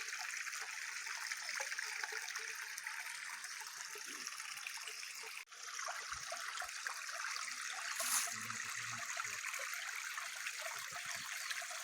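Water of a stream running steadily, a continuous rushing that cuts out for a moment about five and a half seconds in.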